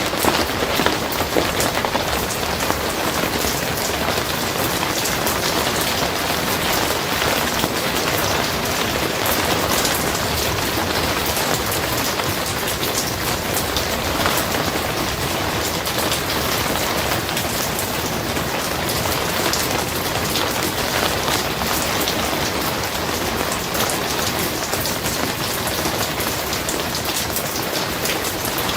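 Steady rain falling on a barn roof: a dense, even patter of countless drops that holds at the same level throughout.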